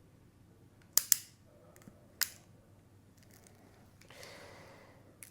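Hand crimping tool clicking as it closes on a BNC connector's gold center pin: a quick double click about a second in and another click a second later, then a faint rustle near the end.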